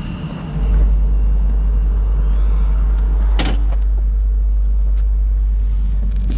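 Komatsu excavator's engine running as a deep, steady rumble that gets louder about half a second in. A single sharp clank comes about three and a half seconds in.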